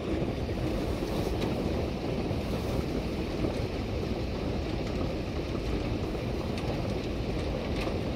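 Steady rain with wind: an even, unbroken rush of noise.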